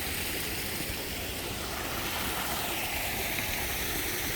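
Steady rushing of flowing water in a small stream channel, with water spilling down from above.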